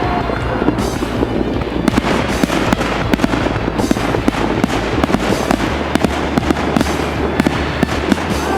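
Fireworks crackling and banging in a dense, continuous barrage, with a brief whistle near the start and another near the end.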